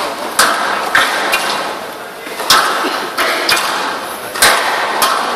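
Squash rally: sharp cracks of the ball off the racket and the walls, coming unevenly about every half second to second, often in quick pairs, each ringing on in the hall.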